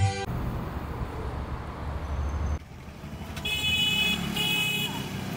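Street traffic with a vehicle engine rumbling close by. About three and a half seconds in come two short horn honks.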